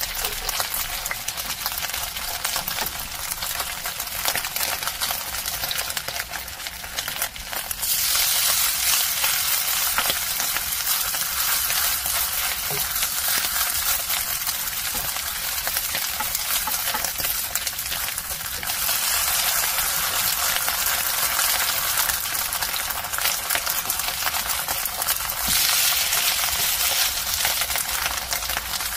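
Eggplant and ground pork patties sizzling in hot oil in a nonstick frying pan, a steady hiss scattered with light clicks and scrapes of the spatula and spoon against the pan. The sizzle grows louder about eight seconds in.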